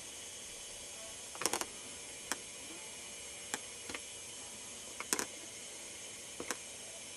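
Handheld camcorder handling clicks: sharp, irregular clicks, some in quick pairs, the loudest about a second and a half in and again about five seconds in, over a steady hiss of recording noise.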